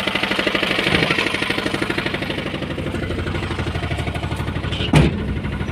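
Vehicle engine running steadily with a rapid, even beat, with a single sharp knock about five seconds in.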